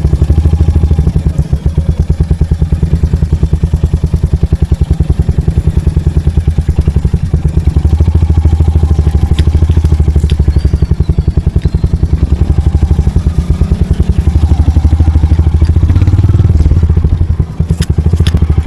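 Royal Enfield Hunter 350's single-cylinder engine running steadily, each firing pulse distinct, with a brief dip and a few sharp clicks near the end.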